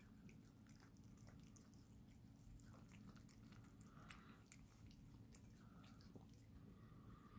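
Faint chewing and smacking of kittens eating liver, heard as many small irregular clicks over a low steady hum.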